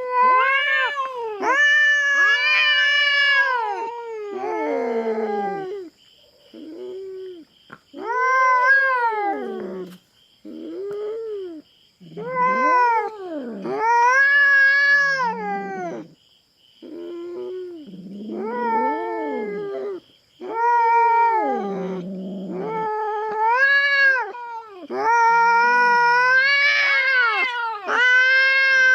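Cats caterwauling in a territorial standoff: long, wavering yowls that rise and fall, one after another with short gaps, some sinking to a low, drawn-out moan. A faint steady high trill runs underneath.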